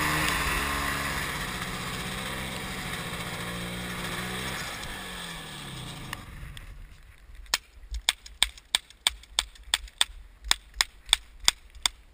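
A snowmobile engine runs, then slows and dies away about five seconds in. From about six seconds in, a Crosman 3357 CO2 paintball pistol fires about fifteen sharp shots in quick, uneven succession, two to three a second.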